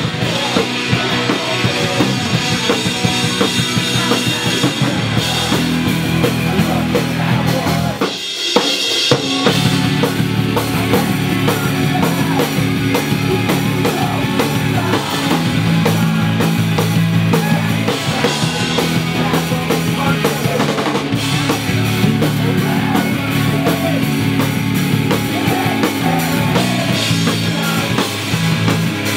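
A post-hardcore band playing live at full volume: electric guitar, bass and drum kit, with a singer's vocals over the top. About eight seconds in, the bass and drums drop out for about a second before the band comes back in.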